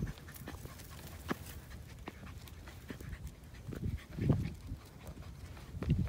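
Heavy panting breaths that swell twice, about four seconds in and again near the end, over scattered footsteps crunching on a rocky trail.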